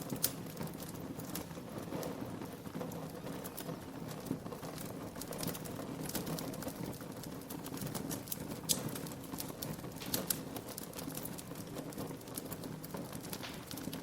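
Wood fire crackling, with irregular small pops and snaps over a low steady rustle of burning, and a few louder pops.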